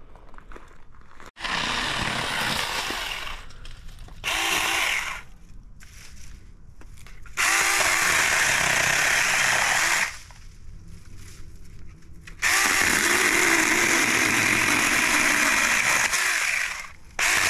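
Saker mini battery-powered chainsaw run in five bursts of one to about four seconds each, its small motor whining as it cuts, with quieter pauses between the cuts.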